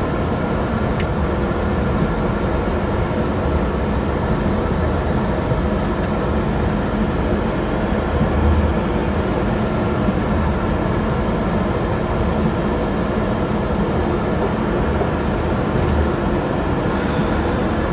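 Steady running noise of a Shinkansen bullet train heard from inside the car at speed: a constant low rumble with a steady hum. A single faint click sounds about a second in.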